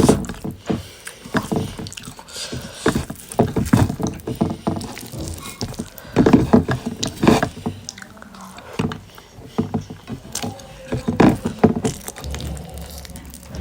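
Close-up eating sounds: chewing and mouth noises with irregular smacks and clicks.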